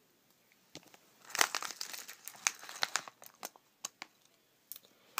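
Handling noise from a hand moving small die-cast toy trains and plastic track pieces: after about a second of quiet, a run of irregular crinkles, crackles and sharp clicks.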